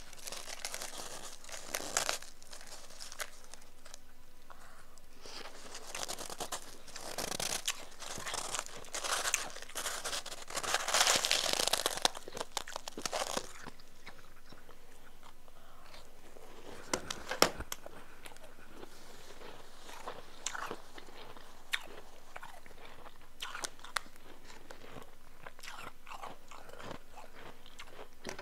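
Close-miked crunching and chewing of soft, powdery chunk ice in the mouth. A dense run of crunches for roughly the first half, then sparser, scattered crunches.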